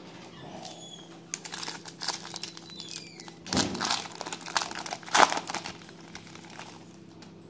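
Foil wrapper of a baseball card pack crinkling and rustling in the hands as the pack is opened, a few seconds of sharp crackles, loudest a little past the middle.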